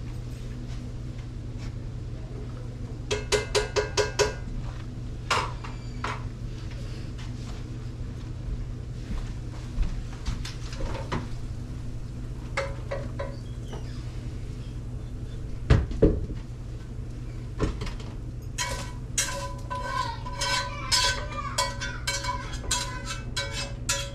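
A metal utensil tapping and scraping in a skillet of ground beef as it is drained into a strainer in the sink, over a steady low hum. A quick run of ringing taps comes a few seconds in, scattered knocks follow, and a dense run of clanks and scrapes comes near the end.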